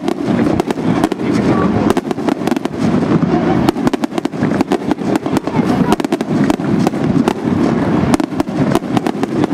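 Aerial fireworks display: a dense, continuous barrage of sharp bangs and crackling reports, many each second, over a steady low rumble.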